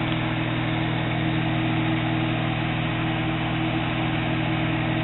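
Microwave oven running: a steady electrical hum with the even whir of its fan.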